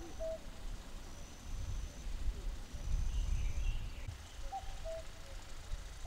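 A bird gives a short two-note call, the second note lower, once near the start and again near the end, over a low outdoor rumble that is loudest around the middle.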